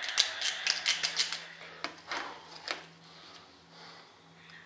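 A quick run of sharp clicks in the first second and a half, then a few spaced taps, from a thin strip and a pencil being handled at a workbench.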